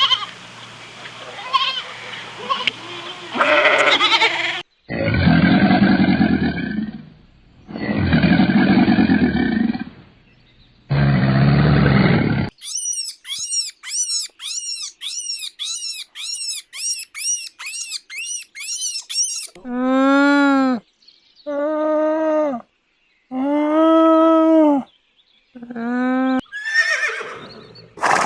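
A series of different animal calls, one after another. First come three long, low, rough roars, then a fast run of high repeated calls, about two a second, lasting several seconds. Near the end there are five short pitched calls that rise and fall.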